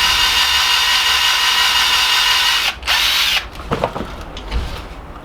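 Electric drill boring out the seized suspension pivot of a 1963 Moulton bicycle's rear fork, running steadily with a brief dip near three seconds before stopping about three and a half seconds in. A few light clicks and knocks follow.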